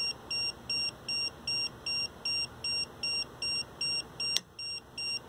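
Handheld Meterk EMF meter sounding its alarm with a short high-pitched beep about two and a half times a second, the sign of a strong field reading from an energized turntable motor field coil. A single sharp click about four seconds in.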